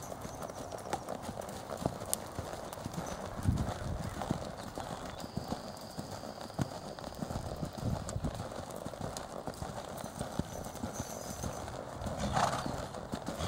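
Hoofbeats of a palomino quarter horse gelding on the soft dirt of an arena as it is ridden around the pen: irregular dull thuds over a steady background hiss.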